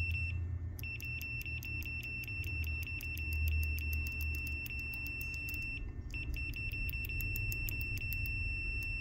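Klein CL390 clamp meter's continuity beeper giving a steady high beep while the test-lead probe tips are held together, showing a short circuit through the leads. It drops out briefly twice as the tips part, with small clicks of the metal tips touching and scraping.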